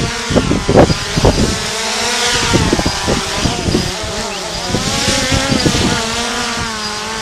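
Quadcopter drone's propellers buzzing, the pitch drifting up and down as the motors change speed. Wind buffets the microphone in the first second or so.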